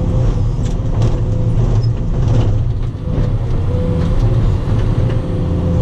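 Cat 320E excavator's diesel engine running steadily with a deep drone, and a few faint knocks over it.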